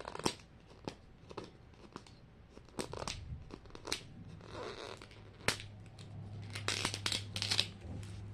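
Plastic toy packaging being handled and unwrapped: crinkling rustles and sharp clicks at irregular intervals, busiest near the end.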